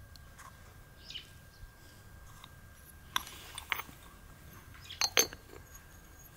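Light clinks of tableware: a metal utensil knocking on a ceramic plate, twice about three seconds in and twice about five seconds in, each with a short ring.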